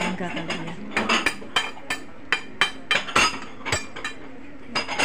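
Tableware clinking: an irregular run of about a dozen sharp clicks and clinks of metal utensils against china, bunched in the middle stretch.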